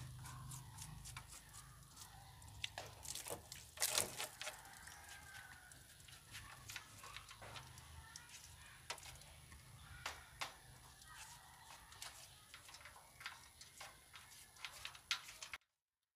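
Faint rustling, clicks and small knocks of rabbits pulling at and chewing a bundle of fresh grass in a wire-mesh and wooden hutch. The sound cuts off suddenly near the end.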